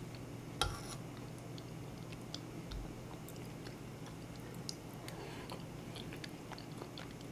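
Quiet eating sounds: a metal spoon clinks once against a ceramic bowl a little over half a second in. After that come faint soft clicks of chewing and mouth sounds as porridge is eaten, over a low steady hum.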